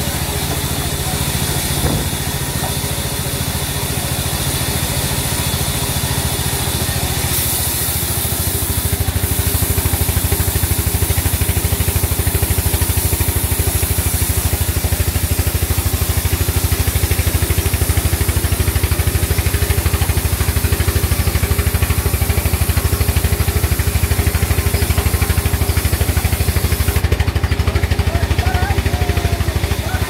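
Belt-driven band saw running steadily and cutting through a thick wooden board: a steady machine hum under the hiss of the blade in the wood, a little louder from about eight seconds in.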